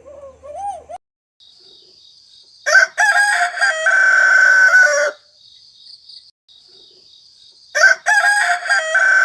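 Rooster crowing twice, each cock-a-doodle-doo ending on a long held note. A faint steady high buzz runs between the crows, and a short sliding call is heard in the first second.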